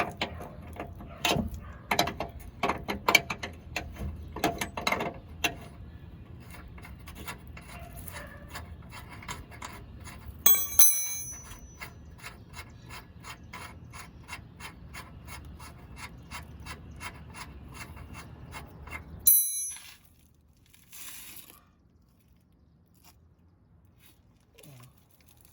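Ratchet wrench clicking as it turns the nut on the Jeep's rear lower control arm bolt, in a long run of quick clicks, louder and uneven at first, then steady. A sharp metallic clink about eleven seconds in, and the ratcheting stops abruptly with a loud click about nineteen seconds in.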